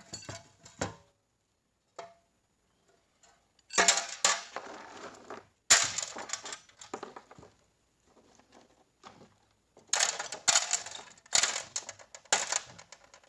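Metal transmission parts clinking and clattering as they are handled, in several bursts with short quiet gaps between them.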